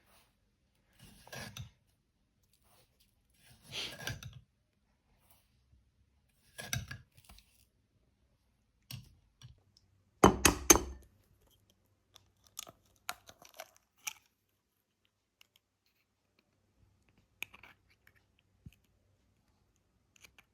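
Scattered kitchen handling sounds while making tiramisu: short rustles, scrapes and taps every second or two, with a louder clatter about ten seconds in.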